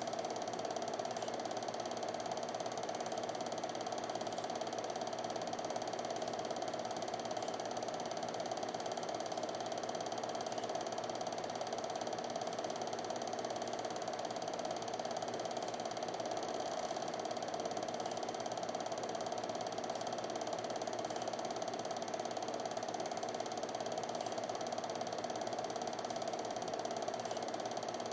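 Film projector running: the steady, even clatter of its mechanism pulling the film through.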